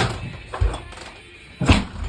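Background music with a heavy beat, deep hits landing about once a second.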